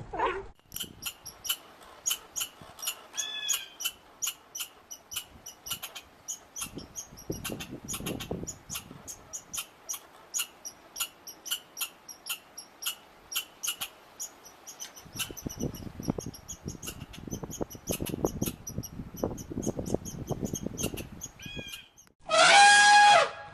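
A small animal chirping rapidly and high, about three or four chirps a second. Near the end there is one loud call lasting about a second.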